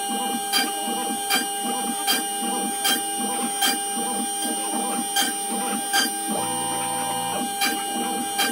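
CNC router's 2 hp spindle whining steadily while the machine drills a grid of small holes in MDF, with a sharp tick about every three-quarters of a second as the bit plunges for each hole and the stepper motors whirring between plunges. A lower hum comes in for about a second near seven seconds in.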